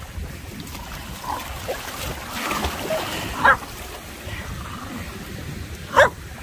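A dog barking twice, a few seconds apart, over the steady rush of a river or waterfall.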